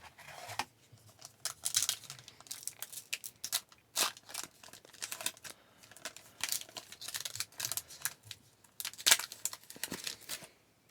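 A hockey card pack's wrapper being torn open and the cards handled: a run of crinkly tearing and rustling with sharp scratchy strokes.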